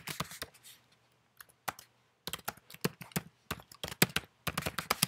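Typing on a computer keyboard: a few scattered keystrokes in the first two seconds, then a quick, steady run of keystrokes.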